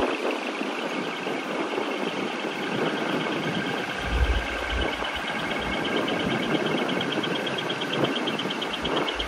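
Truck engine noise over a dense, steady rushing background, with a brief low rumble about four seconds in. A fast, high pulsing beep becomes clearer over the second half.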